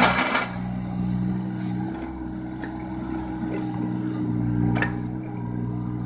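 John Deere 17D mini excavator's diesel engine running steadily under hydraulic load as the machine digs, its pitch shifting slightly. There is a short loud burst of noise right at the start and a sharp knock about five seconds in.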